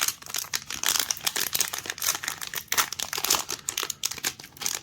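Crinkly wrapper of a Garbage Pail Kids fat pack of trading cards being handled and torn open by hand, with a steady run of irregular crackles.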